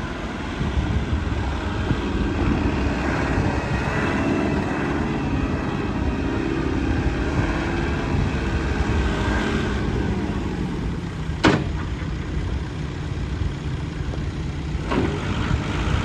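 Diesel engine of a JCB 3CX compact backhoe running steadily at idle, with a sharp click about eleven seconds in and a fainter one a few seconds later.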